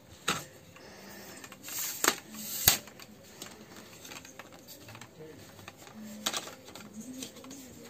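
Simpex tripod's plastic clamps and aluminium legs clicking and knocking as they are handled and adjusted: a few sharp clicks, the loudest about two and a half seconds in, another near the six-second mark.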